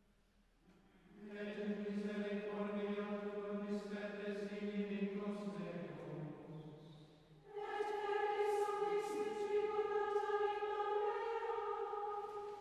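Choir chanting the office in unison: one phrase sung at a lower pitch starts about a second in, then after a brief pause a second phrase follows at a higher pitch.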